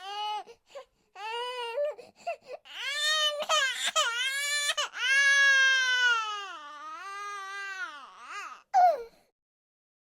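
A baby crying: a string of high-pitched wailing cries with short gaps between them. The longest wail is held for a few seconds in the middle, and the crying stops about nine seconds in.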